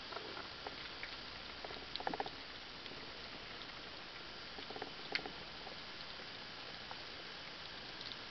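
Underwater ambience: a steady hiss dotted with sharp clicks, with two short rapid rattles of clicks about two seconds and about five seconds in.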